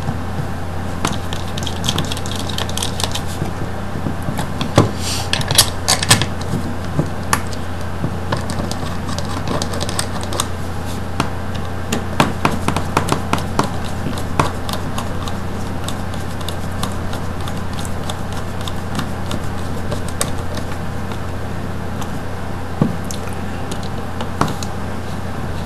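Screwdriver driving small screws into a plastic switch box cover: scattered clicks and scrapes of the driver tip and screws, over a steady low hum.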